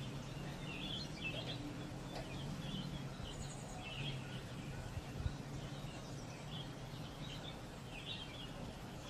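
Small birds chirping on and off over a low steady hum, with a soft knock about five seconds in.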